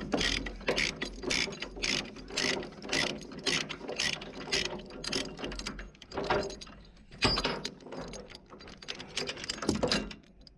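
Ratchet chain binder being loosened by hand: the pawl clicks in a steady run, two or three a second, as the handle is swung back and forth to release the chain's tension. A loud metal clank comes a little after seven seconds, followed by a few more clicks.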